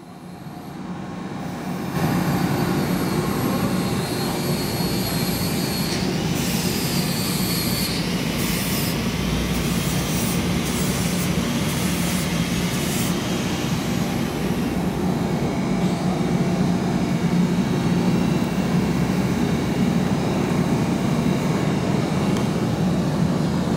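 Steady, loud machine drone of an engine running, with a low hum, fading in over the first two seconds. Between about 6 and 13 seconds in, high whining tones and a few sharp clicks come in over it.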